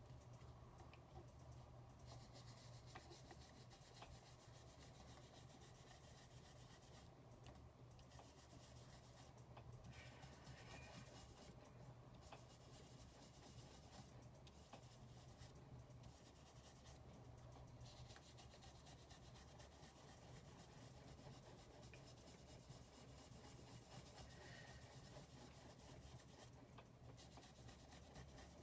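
Faint soft rubbing of a foam ink blending tool worked over cardstock, over a steady low hum.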